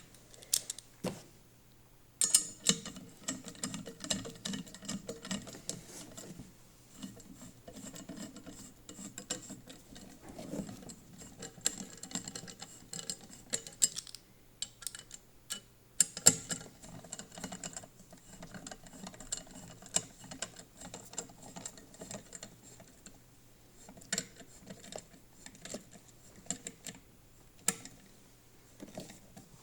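Small irregular clicks, ticks and rattles of a screwdriver turning bolts and metal fittings while the legs are bolted onto a garden shredder's frame, with a few louder knocks of parts being handled.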